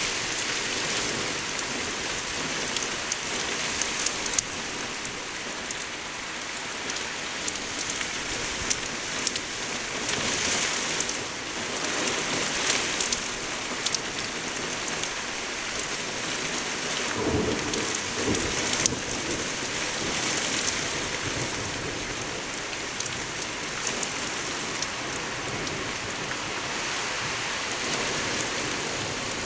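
Rain falling steadily, a dense hiss with pattering drops, during a thunderstorm. A low roll of thunder comes about two-thirds of the way in.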